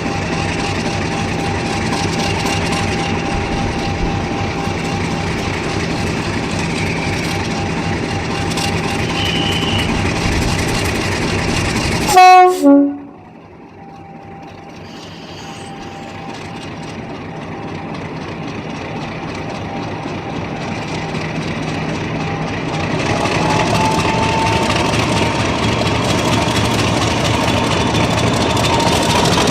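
Class 50 and Class 40 English Electric diesel locomotives running with a steady engine note. About twelve seconds in come two short, very loud horn blasts. The engines then power up to pull away, their sound building steadily with a rising whine near the end.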